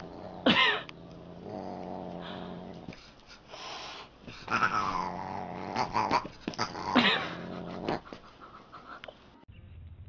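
A Siamese cat and a dog play-fighting: several loud, wavering yowls over a steady low growl. The sound cuts off shortly before the end.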